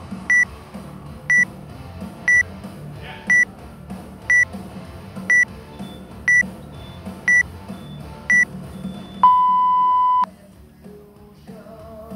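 Workout interval timer counting down: short high beeps once a second, then one long lower beep about nine seconds in that signals the start of the workout.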